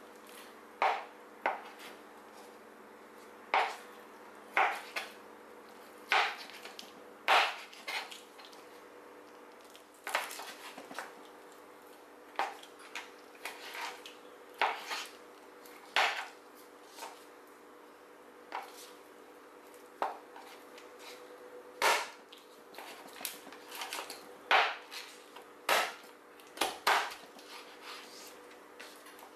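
A meat cleaver chopping raw chicken into bite-sized pieces on a plastic cutting board: irregular sharp chops, one every second or two and sometimes two in quick succession.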